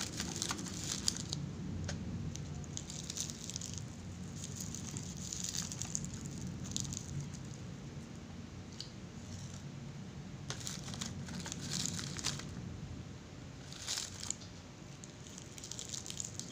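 Short bursts of crinkling and crackling, again and again every second or two, from seaweed being handled and eaten close to the microphone, over a low steady hum.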